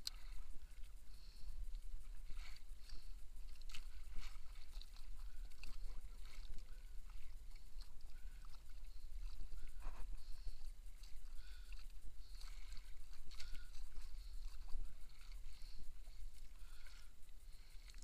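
Sea water lapping and sloshing against the hull and outrigger floats of a drifting outrigger boat, with scattered small splashes and a low steady rumble underneath.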